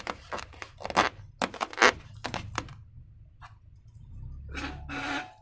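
Close-up handling sounds of slime-making materials: a quick run of crisp crackles and crunches, then a pause and two longer rustling sounds near the end.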